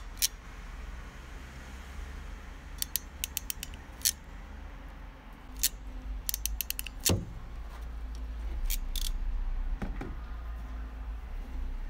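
Ratcheting crimping pliers clicking in quick short runs as they squeeze a brass butt connector onto two joined wires, with a few single clicks from handling, over a steady low rumble.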